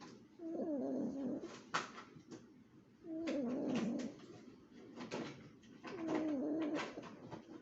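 A Chihuahua snoring in its sleep: three snores, each about a second long and wavering in pitch, coming regularly about every three seconds.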